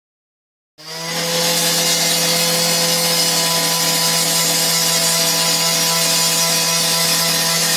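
Power tool cutting into concrete, its motor running loud at a steady pitch; it starts about a second in.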